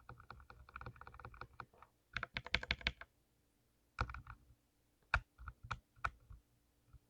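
Typing on a mechanical keyboard: a quick run of keystrokes, a dense flurry about two seconds in, a short burst at about four seconds, then a few separate key presses.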